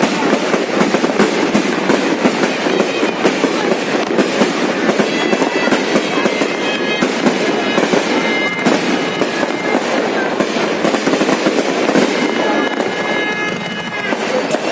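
Fireworks going off in a dense, continuous barrage of rapid bangs and crackles. High steady whistling tones come in over the crackle about a third of the way in and again near the end.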